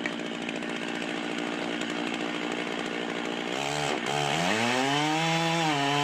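Chainsaw engine running, then revving up about three and a half seconds in; its pitch dips briefly and climbs back to a steady high note.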